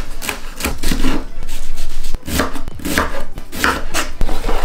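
Kitchen knife chopping celery, carrot and onion for a soffritto: a steady run of short chops, about two to three a second, with a brief pause near the middle.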